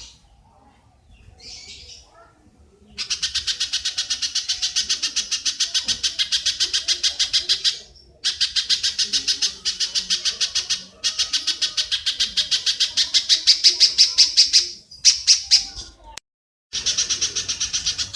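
A high-pitched chattering call of rapidly repeated notes, about nine a second, in long bouts that start about three seconds in. It drops out suddenly for half a second near the end.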